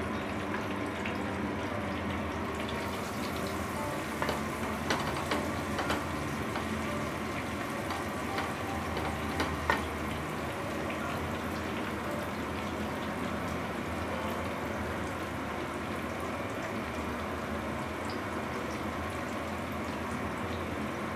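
Batter-coated chicken pieces sizzling steadily in hot oil over a low flame. The sizzle grows brighter about two and a half seconds in, and a few sharp ticks come between four and ten seconds in.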